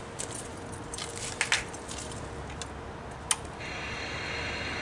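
A few sharp clicks and knocks from the 1970s KMC black-and-white CRT TV's power switch and handling, then about three and a half seconds in a steady static hiss with a faint buzz in it starts from the set's speaker as the TV powers up.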